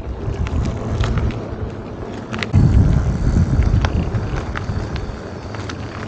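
Wind buffeting the microphone while a fat-tire electric bike is ridden, an uneven low rumble that swells about halfway through. Scattered sharp clicks and rattles sound over it.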